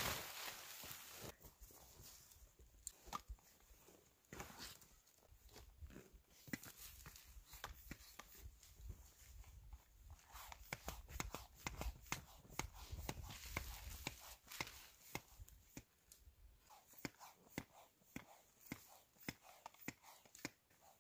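Faint, irregular clicks and rustling of a nylon tent being pitched, its fabric handled and clipped onto the poles, with a low rumble through the middle stretch.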